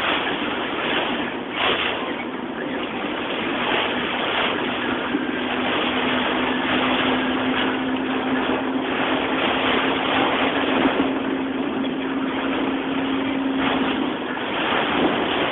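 Heavy storm rain and wind beating on a car, heard from inside the cabin as a dense, steady rush. A low steady hum joins it from about four seconds in until near the end.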